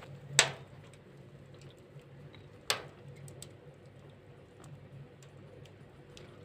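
Firewood crackling as it burns in the firebox of a Sibir-12 fireplace stove: two sharp pops, about half a second and nearly three seconds in, with faint ticks between.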